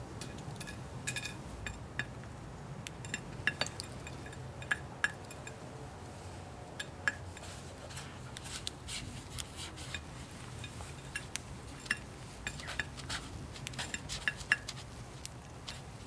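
A sparrow pecking at potato-chip scraps on a china plate: irregular light taps and clinks of beak on plate, several a second at times, over a low room hum.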